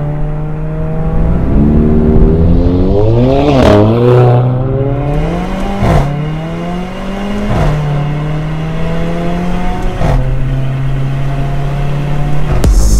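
Mercedes CLA 45 AMG's turbocharged four-cylinder engine through an Armytrix aftermarket exhaust, driven hard through the gears: the note climbs and drops several times with the shifts, and a few sharp cracks from the exhaust come at the shifts.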